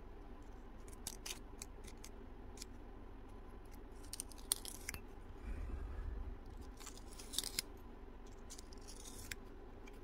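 Hobby knife blade scraping around the cut end of a brass stuffing tube to deburr it: a few faint, scattered scratchy scrapes and clicks.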